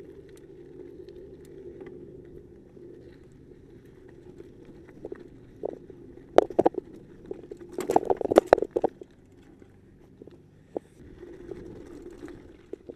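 Mountain bike rolling over a dirt singletrack: a steady rumble of tyres and bike, broken by sharp rattles and knocks over rough ground about six seconds in and, loudest, around eight to nine seconds in.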